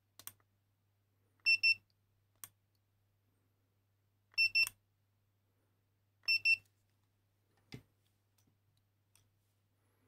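Handheld infrared thermometer beeping: three short double beeps about two seconds apart, each marking a temperature reading being taken. A few faint clicks fall between them.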